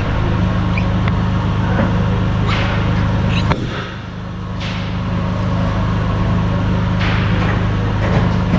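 Steady low mechanical hum that cuts out briefly about a third of the way in and then returns, with a few short scraping and sliding sounds of metal pump parts being handled.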